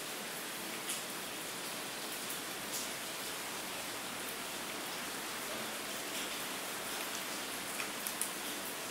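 Steady rain falling: an even hiss, with a few sharper drop ticks now and then.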